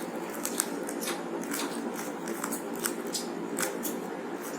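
Plastic Rubik's Cube being handled and turned, its layers giving irregular sharp clicks and clacks.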